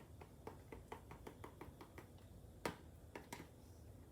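Faint, irregular clicks and taps of small plastic toys being handled and moved on a hard surface, one a little louder about two-thirds of the way through.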